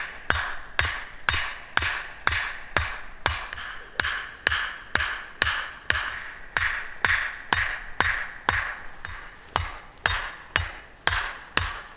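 An axe striking the tops of wooden stakes, driving them into the ground: steady hollow wooden knocks, about two a second, each with a short ringing tone, stopping just before the end.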